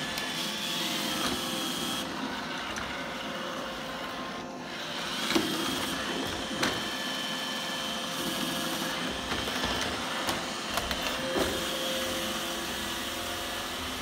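iRobot Roomba i7 robot vacuum running with a steady hum and a high whine from its motor and brushes, while it works at a threshold strip about 2 cm high. A few sharp knocks come as it bumps against the threshold: one about five seconds in, another a second later, and a quick cluster near eleven seconds.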